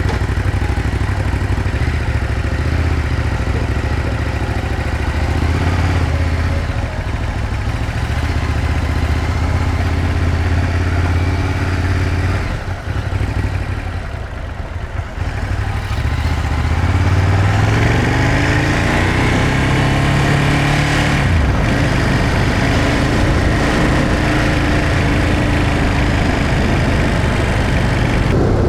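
2021 Ducati Monster 821's 821 cc Testastretta V-twin running through its stock exhaust: steady at low revs, easing off and quieter about halfway through. It then rises in pitch as the bike accelerates and holds a higher steady note near the end.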